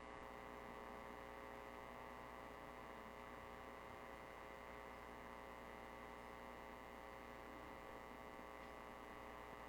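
Faint steady electrical mains hum, a buzz of many fixed tones that stays unchanged throughout.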